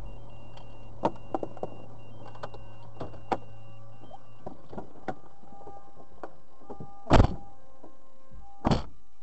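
A car's steady running hum stops about four and a half seconds in, amid scattered clicks and knocks as the occupants unbuckle and open the doors. Near the end, two car doors slam shut about a second and a half apart.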